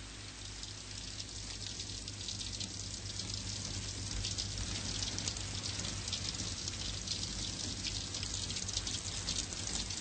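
Steady rain, a dense hiss of fine crackling drops, growing louder over the first few seconds and then holding steady.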